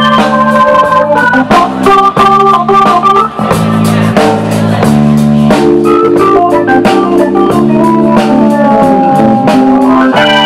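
Live band playing an instrumental passage: organ-toned keyboard chords over a drum kit, with a held note that bends down and back up near the end.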